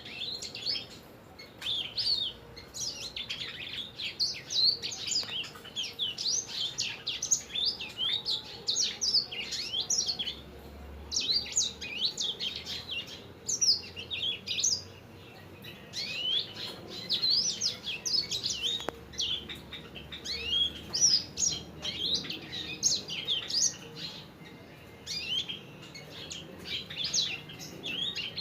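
A sanger finch singing rapidly and continuously: long runs of quick, high twittering notes with only brief breaks. This is the non-stop 'gacor' song used as a master recording for training other songbirds.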